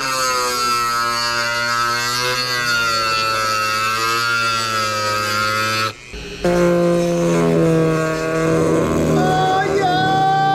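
Handheld rotary tool running with a steady whine as its grinding bit widens a mounting hole in a carbon-fibre fender, because the hole is offset. The whine stops about six seconds in and comes back at a higher pitch.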